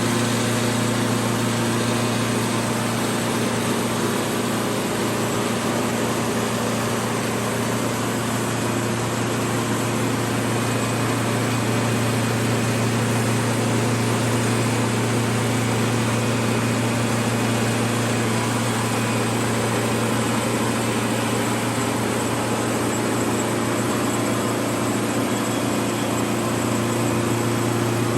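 An engine running steadily at a constant speed, a low even hum that does not change.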